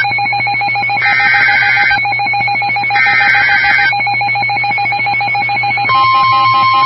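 Two EAS/SAME digital header bursts, each about a second long, sound as a warbling data squeal on a NOAA Weather Radio receiver. About six seconds in, the steady 1050 Hz warning alarm tone starts, signalling that a new warning follows. A constant low hum and a fainter steady tone run underneath.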